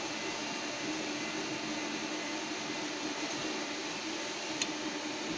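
Automatic submerged arc welding head running a test weld: a steady hiss with a low hum underneath, and one short click near the end.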